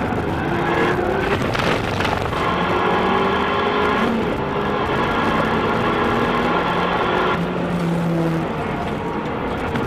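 Fiat 500 Abarth's 1.4 turbocharged four-cylinder engine heard from inside the cabin, running hard on track, its note stepping up and down a few times through the laps' corners, over steady tyre and wind noise.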